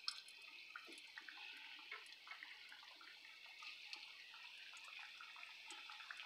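Split pea vadai patties frying in hot oil: a faint, steady sizzle with many small crackles and pops.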